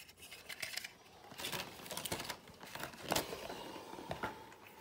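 Toy alarm clock and its plastic packaging being handled close to the microphone: an irregular run of clicks, taps and rustles.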